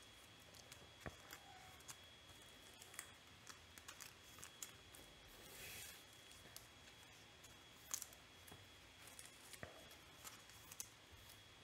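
Faint clicks and soft rustles of trading cards being slid into plastic sleeves and set down on a table mat, with a brief swish about six seconds in.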